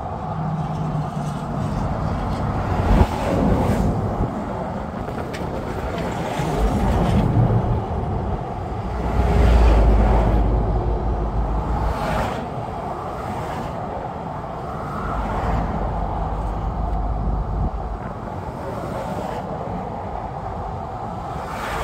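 Vehicle running, with wind noise on the microphone: a steady noisy rumble that swells in deep low surges, loudest about ten seconds in.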